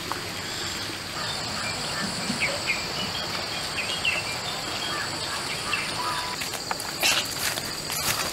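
A steady, high-pitched chorus of insects droning outdoors, with occasional faint bird chirps and a short rustle near the end.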